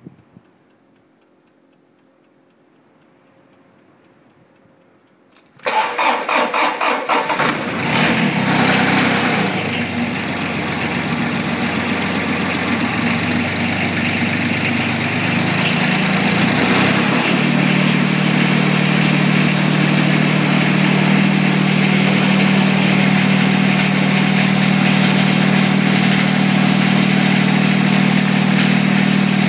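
John Deere 455 garden tractor's three-cylinder diesel starting from cold. After about five quiet seconds the starter cranks in rapid pulses for about two seconds, the engine catches and runs unevenly, then about two-thirds through its tone changes and it settles into a steady run.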